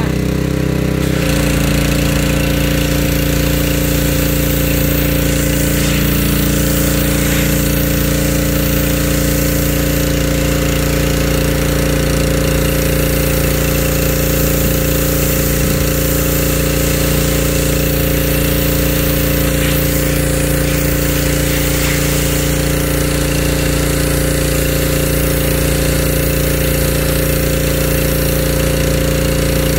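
Pressure washer running steadily, its high-pressure jet of water spraying onto a car's body panels.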